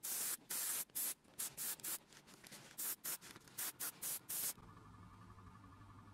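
Airbrush spraying leather dye in a rapid series of short hissing bursts, then stopping about four and a half seconds in, leaving a faint low hum.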